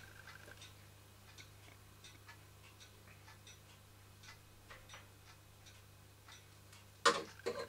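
Faint light ticks, a few a second and slightly irregular, over a steady low hum.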